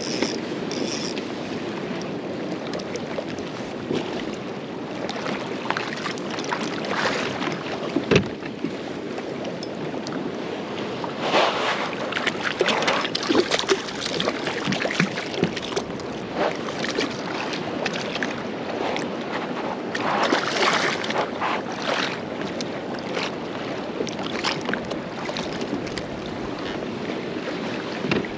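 Wind buffeting the microphone and choppy lake water lapping against a fishing kayak's hull, with louder gusty stretches and rustle and handling noise. One sharp knock about eight seconds in is the loudest moment.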